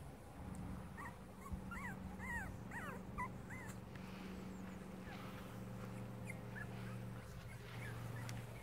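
Five-week-old Cavalier King Charles Spaniel puppies whimpering and yipping: a quick run of short high calls between about one and four seconds in, then a few fainter ones later, over a steady low hum.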